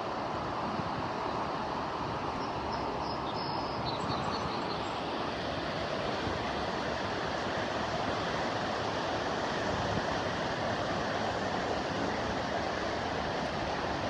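Steady rushing of the flood-swollen Potomac River running high and fast, an even noise that holds at one level throughout.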